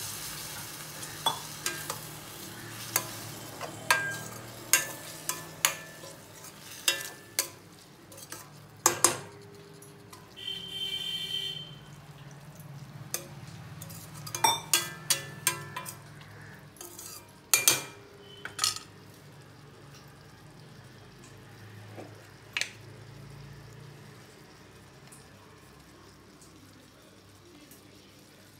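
Okra, onion and tomato sizzling in a stainless steel kadai just after a splash of water. A spoon clinks and scrapes against the pan in quick strokes as the mixture is stirred. After that the stirring stops and only a quieter sizzle is left.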